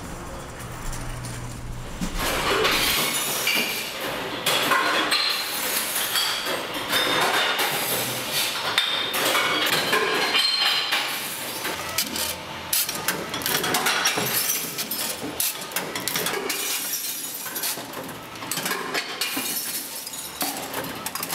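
Glass bottles clinking and knocking one after another as they are fed into a reverse vending machine for glass, a dense run of sharp clinks that starts about two seconds in after a low hum.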